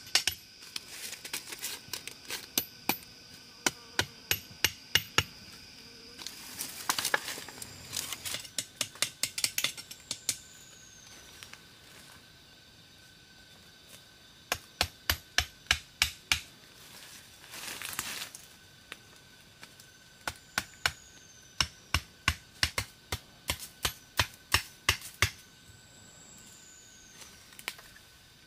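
Runs of sharp knocks from a hand tool striking, two to four strikes a second, stopping and starting several times.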